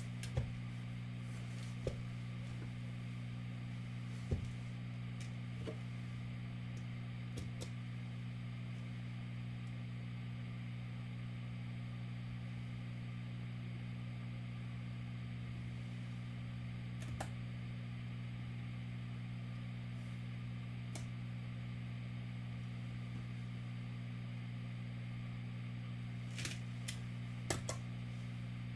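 A steady low hum, with a few faint clicks scattered through, most of them near the start and near the end.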